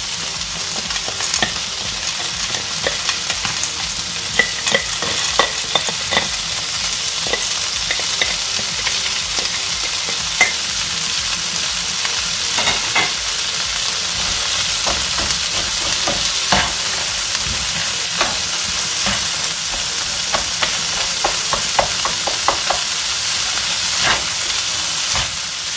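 Onion, green pods and just-added frozen green peas sizzling in oil in a frying pan. A slotted spatula stirs them, scraping and knocking against the pan in clusters of sharp clicks.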